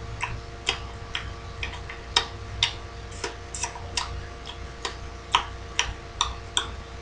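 A woman's mouth making a run of short tongue clicks and lip smacks, about three a second at uneven spacing, as a wordless demonstration of the sound of a mouth on a vulva. A faint steady hum sits underneath.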